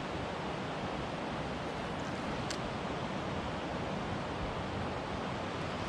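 Steady rush of flowing river water, an even hiss with no rhythm, with one faint click about two and a half seconds in.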